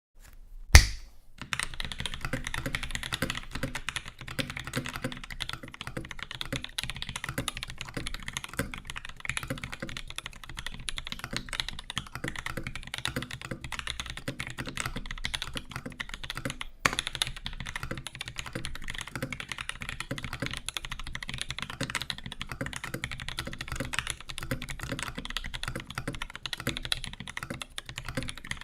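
Typing on a custom 60% mechanical keyboard with lubed linear switches (retooled Cherry MX Black stems with Zealio bottom housings) in a walnut case, topped with GMK doubleshot keycaps: a fast, continuous run of keystrokes, described as a loud one. A single sharp knock about a second in is the loudest sound, with a smaller one near the middle.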